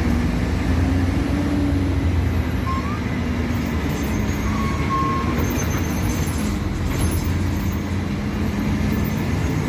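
Mercedes-Benz O-500MA BlueTec 5 articulated bus's diesel engine running steadily, a low drone whose pitch drifts slightly up and down.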